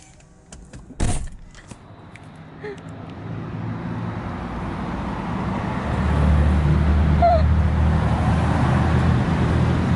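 A car door shuts with a thump about a second in. Then a motor vehicle's engine, with a low steady hum, grows louder over a few seconds and runs steadily and loudly.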